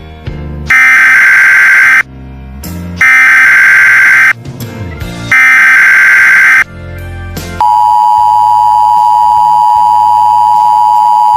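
Emergency Alert System SAME header: three loud, harsh bursts of digital data tones, each a little over a second long, with music heard in the gaps. Then the steady two-tone EAS attention signal comes in about two-thirds of the way through and holds on.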